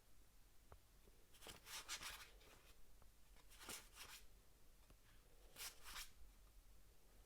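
Game cards being handled and slid against each other, giving a few faint, soft swishes.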